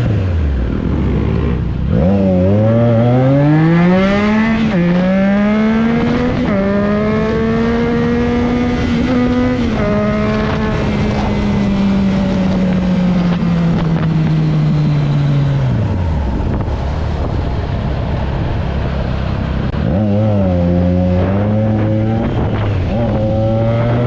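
Triumph Trident 660's three-cylinder engine through an M4 carbon-fibre aftermarket exhaust, accelerating through the gears: the pitch climbs, dips briefly at each upshift, then holds and slowly falls as the bike eases off. It speeds up again near the end.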